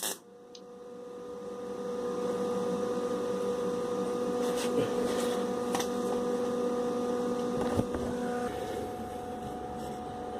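Steady machine hum with a few fixed tones, swelling over the first two seconds, with a brief clicks here and there; its main tone steps higher about eight and a half seconds in.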